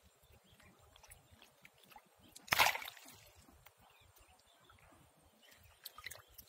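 Water sloshing and splashing around a net full of live fish held in shallow water, with one loud splash about two and a half seconds in and more small splashes near the end.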